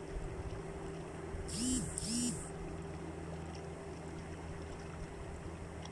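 Muddy floodwater of a flash-flood torrent rushing past, a steady rushing noise. About a second and a half in come two short calls, each rising and then falling in pitch.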